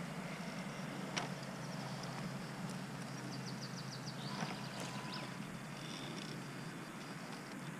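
Electric motor and gearbox of a 1:6 scale RC Willys MB crawler running steadily at low speed as it climbs over tree roots, with a couple of sharp knocks from the chassis and tyres against the roots.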